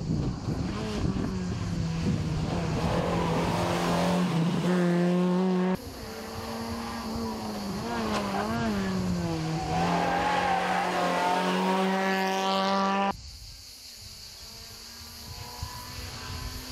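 Suzuki Swift rally cars' four-cylinder engines at high revs, one car after another. The revs dip and climb again as the cars lift off and accelerate through corners, with a rising pitch near the end of the second car's pass. The sound breaks off abruptly twice, and the last car is fainter.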